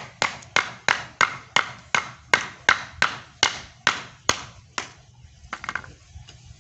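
A blunt kitchen knife chopping down on hard ketapang (Indian almond) nuts on a wooden board, about three sharp knocks a second, as it tries to split the stone-hard shells. The chopping stops about five seconds in, with a few lighter knocks after.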